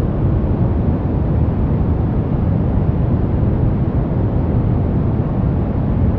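Continuous baby-sleep white noise: a steady, even rushing hiss with no changes, deep and heaviest in the low end.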